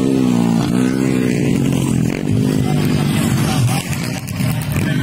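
Racing motorcycle engines revving hard, their pitch rising and falling as the riders work the throttle, with a brief drop in level a little before four seconds in.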